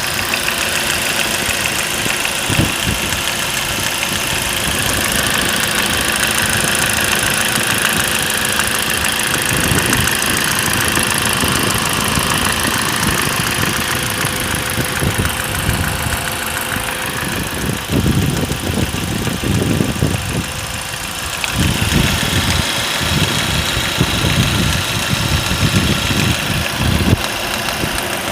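Ford Focus 2's 1.8-litre 125 hp petrol four-cylinder engine idling with a knock (стук), the low thumps heavier in the second half. The knock comes and goes and returns louder when the car stands idling; it came back after the dealer removed the air-conditioning drive belt on the theory of a faulty AC compressor clutch.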